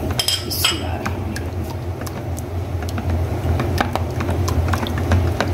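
A metal spoon stirring and beating yogurt with spices in a glass bowl, making light, irregular clicks against the glass over a steady low hum.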